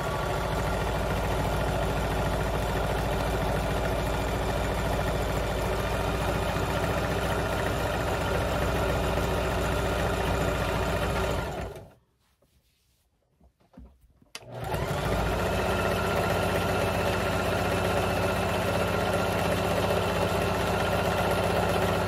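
Electric sewing machine running at a steady fast speed, stitching the coils of a fabric-strip jelly roll rug. It stops about halfway through for two or three seconds, then speeds back up and runs on.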